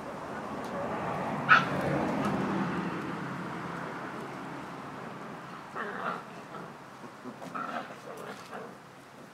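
Six-week-old Akita puppies at play, making yips and small barks. One sharp yip comes about one and a half seconds in, over a rustling noise, and a few shorter calls follow in the second half.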